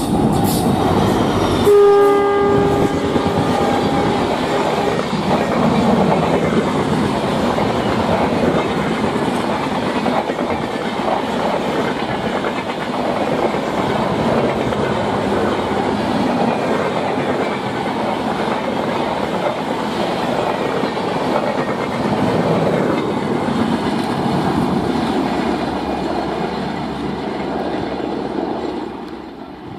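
Passing express train hauled by a WDP 4D diesel locomotive. Its horn sounds about two seconds in and fades out over the next three seconds. Then the coaches roll past with a steady rumble and the clickety-clack of wheels over rail joints, dying away near the end.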